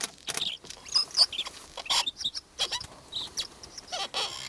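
Bluethroat singing: a quick, varied run of short notes, high whistles mixed with sharp clicks and rasps, following one another with brief gaps.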